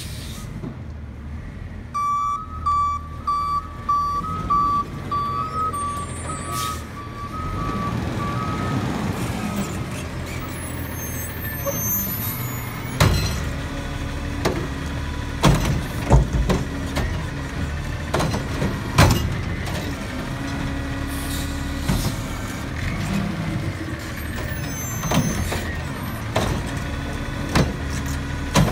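Heil front-loader garbage truck with a cart-tipping attachment working at the curb. Its reversing beeper sounds for several seconds near the start, then the engine revs up and down, and a run of sharp metal clanks and bangs follows as the attachment and bins are worked, over the steady running of the diesel.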